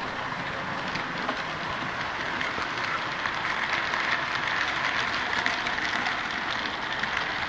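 Model train running along the layout's track: a steady whirring with many small clicks from the wheels on the rails.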